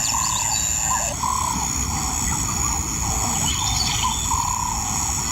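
Outdoor ambience: a bird calling in repeated short rising-and-falling notes, about two a second, over a steady high-pitched insect drone and a low rumble.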